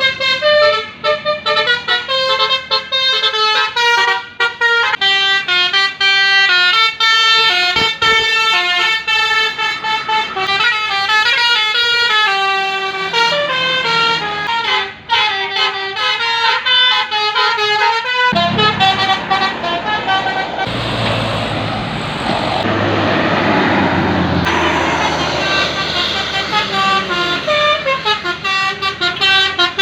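Telolet multi-tone bus horns playing melodic tunes, stepping quickly from note to note. About two-thirds of the way through, a loud rush of heavy engine noise comes in for several seconds, and then the horn tunes return near the end.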